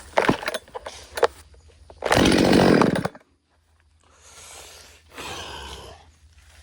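Chainsaw engine revving in a loud burst of about a second, then cutting off, after a few knocks. Two softer, noisier rushes of sound follow.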